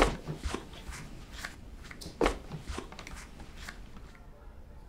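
A few sharp knocks and thuds amid light clatter and rustle of objects being handled in a small room. The loudest knock comes right at the start, another a little over two seconds in, and it all goes quieter after about four seconds.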